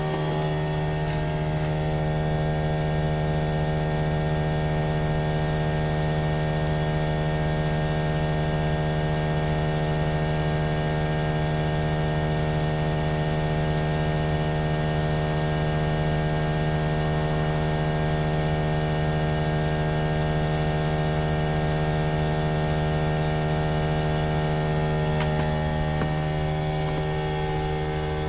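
Trane XV18 variable-speed heat pump running with a steady hum, a single unchanging drone with many overtones. The owner calls the unit very noisy, a lemon.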